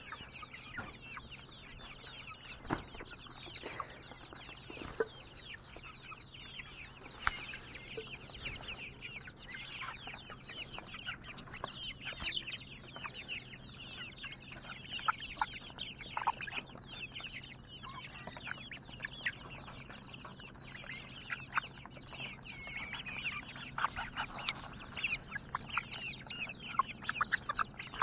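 A flock of chickens clucking and calling, with many short high calls overlapping all the time and a few sharp clicks among them.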